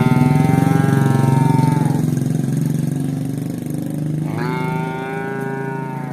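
A cow mooing twice, two long calls each about two seconds, over the steady running of a motorcycle engine.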